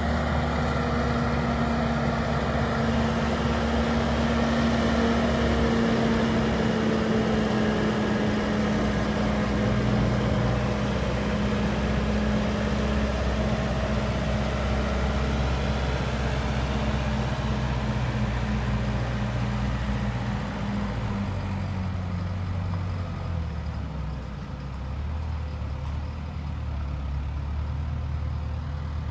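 JCB telehandler's diesel engine running steadily as the machine drives and lifts a loaded bucket up to a lorry's trailer; the engine note drops and the level dips briefly about twenty seconds in.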